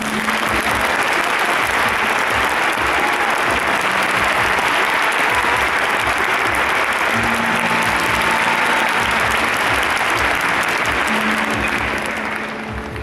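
Arena crowd applauding, starting abruptly and fading out near the end, with music playing underneath.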